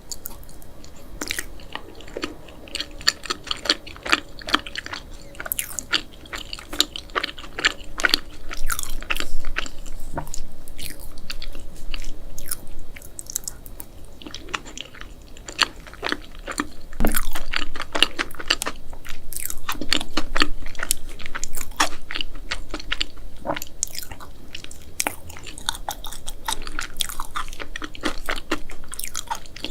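Close-miked mukbang eating sounds: a person chewing and biting food, with many small crunchy, crackling mouth clicks all through.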